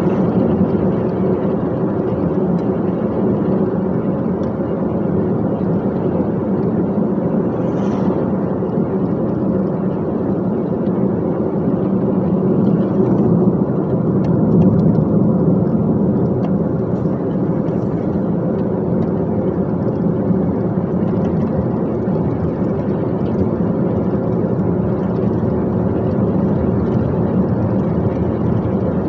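Dump truck's diesel engine and road noise, a steady low drone while the truck drives.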